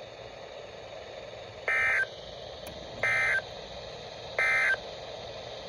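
Emergency Alert System SAME end-of-message signal: three short, identical buzzy data bursts about a second and a half apart, marking the end of the alert.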